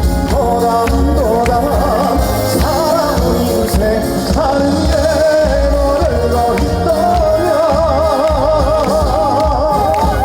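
Live band music with a steady bass beat under a lead melody sung or played with heavy vibrato.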